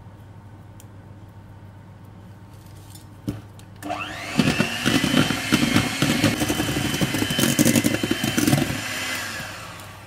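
Electric hand mixer switched on with a click, its motor whining up to speed and then running steadily while the twin wire beaters rattle through egg batter in a plastic bowl. The motor winds down near the end.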